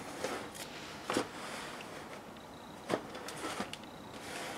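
Cardboard model-kit box being handled and turned on a turntable: a few scattered soft knocks and scuffs, with a short cluster of them near the end.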